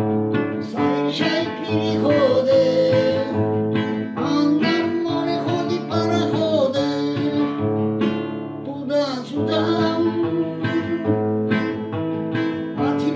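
Acoustic guitar strumming chords, with a voice singing a melody over it.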